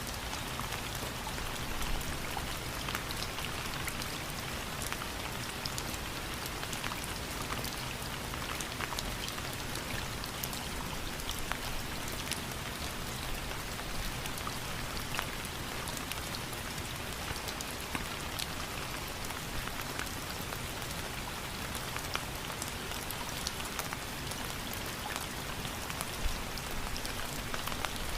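Steady rain, with many individual drops ticking sharply on a surface over an even hiss.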